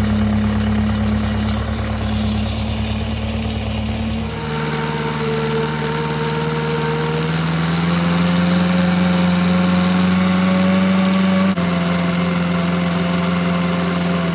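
A motor engine running steadily. About four seconds in its pitch shifts, then creeps slowly upward before dropping back a few seconds before the end.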